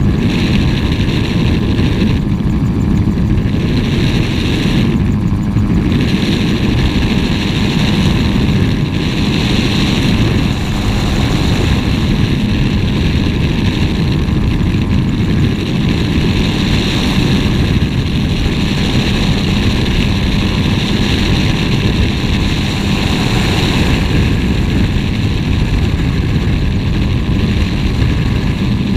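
Gyrocopter in flight: its engine and pusher propeller run at a steady drone, mixed with a rush of air around the open cockpit.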